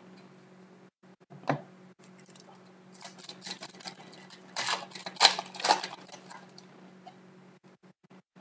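Hockey trading cards and their packs being handled: a single click about a second and a half in, then a run of crisp clicks and rustles from about three to six seconds in as cards are slid and flicked against each other.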